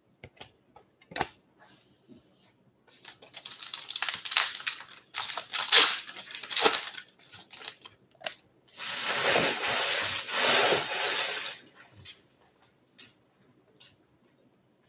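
Trading-card pack being opened: crinkling of the pack wrapper, then a steady tearing sound for about three seconds from about nine seconds in. Light clicks of cards being handled come before and after.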